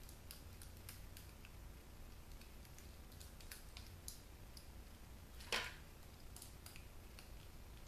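Faint clicking and ticking of a screwdriver working screws out of a small electric motor, with one louder sharp click about five and a half seconds in.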